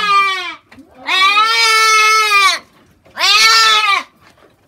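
Goat bleating loudly while held and given an injection: the tail end of one call, then two long calls, the first about a second and a half, the second about a second, each arching slightly up and down in pitch.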